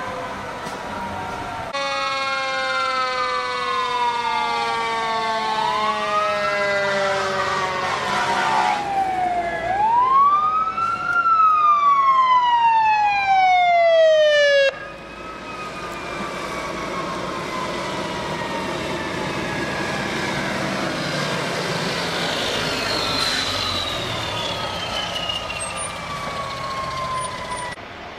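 Fire engine sirens: several overlapping wails rising and falling in pitch, with a fast warbling yelp mixed in. A loud wail peaks and slides down, then cuts off abruptly about halfway through. After that, fainter sirens slowly fall in pitch over steady traffic noise.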